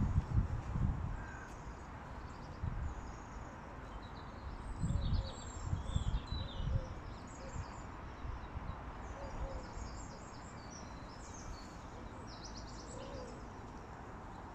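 Wind buffeting the microphone in gusts, strongest at the start and again about five seconds in, over many short high-pitched bird chirps and calls.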